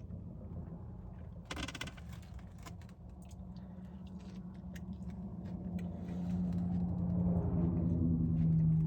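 Low, steady hum of a vehicle engine, swelling over the last few seconds and then stopping abruptly, with scattered small clicks.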